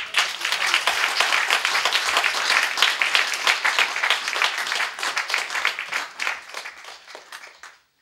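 Audience applauding at the end of a song, many hands clapping steadily, then thinning out and stopping near the end.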